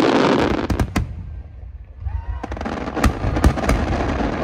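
Fireworks display: aerial shells bursting in a series of sharp bangs, a pair about a second in and the loudest ones around three to three and a half seconds in.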